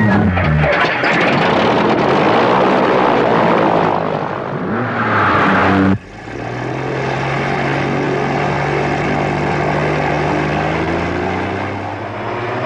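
A Range Rover's V8 engine runs hard, with a dense rush of noise from the car crossing rough grass. About halfway through the sound cuts abruptly to the steady drone of a single-engine light aircraft's propeller engine running on the ground.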